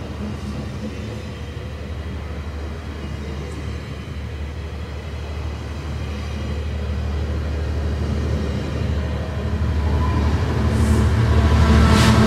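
GO Transit bilevel passenger coaches rolling steadily past on the rails. The diesel engine of the F59PH locomotive pushing at the rear of the train grows louder over the last few seconds as it nears.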